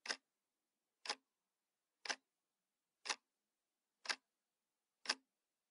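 Clock-like ticking, one short tick a second, six ticks over silence.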